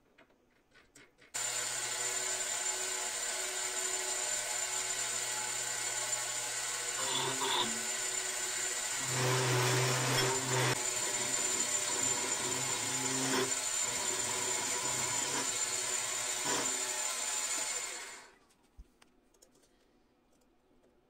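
Electric power tool running steadily, switched on with a sudden start, briefly louder around the middle as if under load, then switched off and winding down.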